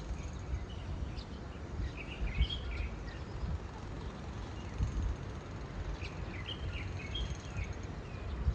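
Open-air background: a steady low rumble, with small birds chirping in two short bouts, about two seconds in and again about six seconds in.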